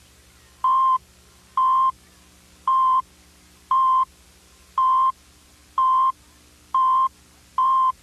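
Countdown tone of a 1990s Emergency Alert System weekly/monthly test: eight short beeps, about one a second, each a steady tone near 1 kHz, marking the seconds of the count-down to the test announcement.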